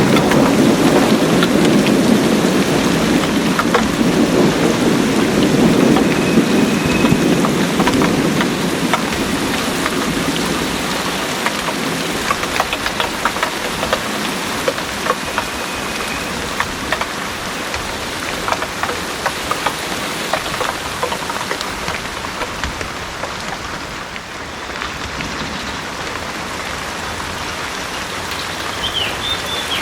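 Heavy rain falling steadily, with a low thunder rumble that dies away over the first ten seconds. After that, steady rain remains, with many individual drops striking close by.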